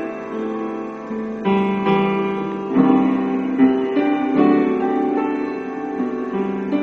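Instrumental music played through a home-built TDA2005 amplifier and its speaker: a melody of separate, sustained notes that change every half second or so.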